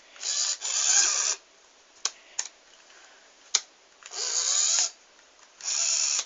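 Toy remote-control car's small electric motor whirring in three short bursts as it is driven, with a few sharp clicks in between.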